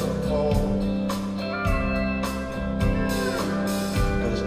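Live country band playing, with guitars over bass and a steady drum beat.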